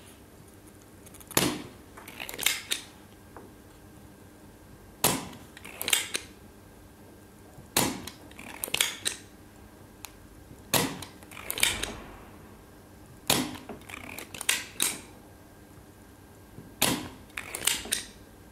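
ZEL OD-25 Turbo spring-loaded desoldering pump firing six times, about every three seconds: each a sharp snap as the plunger springs back and sucks molten solder off the pads. Each snap is followed about a second later by a couple of softer clicks.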